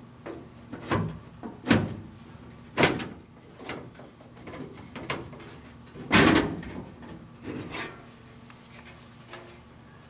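Sheet-metal upper access panel of a furnace being worked loose and lifted off: a series of sharp knocks and clunks, the loudest a little past halfway.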